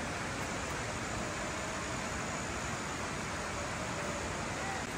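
A steady, even rushing noise.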